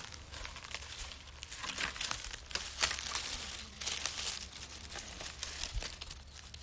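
Dry leaves and twigs crackling and rustling as they are rummaged by hand and trodden barefoot, in a dense, irregular run of crackles.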